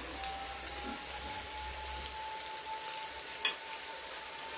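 Crumb-coated chicken thighs and eggplant fingers frying in hot oil, a steady sizzle. A faint, steady high tone runs through it, and a single sharp click comes about three and a half seconds in.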